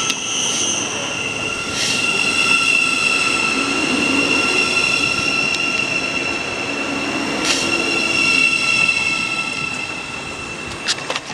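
Thameslink Class 700 electric multiple unit running slowly along the platform, giving a high, steady squealing whine of several held tones over the noise of its wheels on the rails. A few sharp clicks come near the end.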